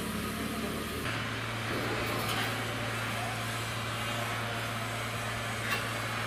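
Steady low machine hum with a haze of background noise from shipyard machinery; the mix of the hum shifts about a second in, and there is a single light click near the end.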